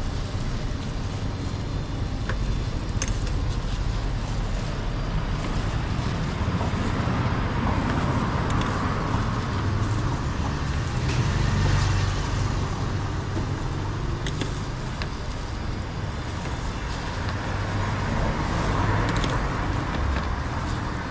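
Road traffic noise: a steady low rumble of passing vehicles that swells about halfway through and again near the end, with a few faint light clicks.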